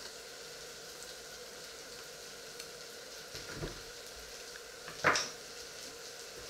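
A metal table knife set down on a wooden tabletop: one short, sharp clatter about five seconds in, with a softer knock a little before it, over a steady low hiss.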